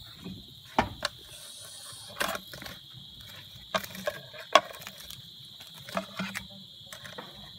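A steady cricket trill, with about ten short, sharp clicks and smacks of eating scattered through it.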